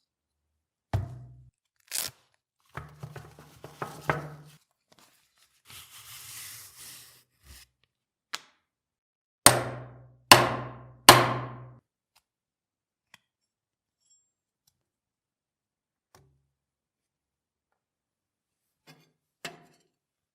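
Workshop handling noise: knocks and clatter of metal parts being set down and worked, a short scraping, then three hard blows a little under a second apart, each ringing briefly. A few faint ticks and one sharp click follow.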